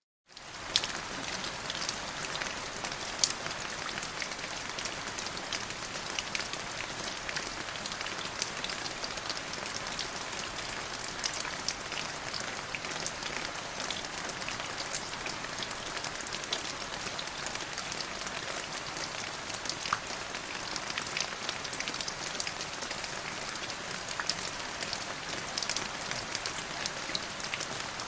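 Steady rain falling, a continuous hiss dotted with the sharp ticks of individual drops striking.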